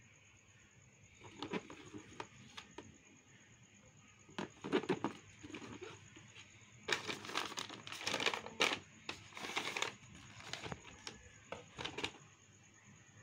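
A cardboard shoe box is handled and its lid opened, giving a few light knocks and scrapes. Then, from about seven seconds in, tissue paper rustles and crinkles as it is unfolded from around a sneaker.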